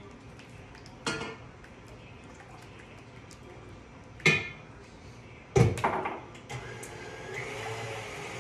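Clinks and knocks of a bowl and its attachment being set in a stand mixer, the loudest about five and a half seconds in. Then the mixer's motor starts, whirring steadily as it beats egg whites, its pitch stepping up a little near the end.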